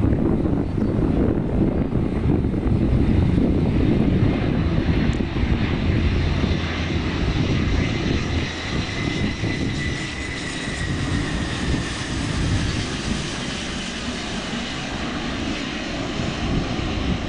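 Jet engines of a three-engined airliner on final approach with its gear down: a steady rumble, with a whine that slowly falls in pitch about halfway through as the aircraft passes.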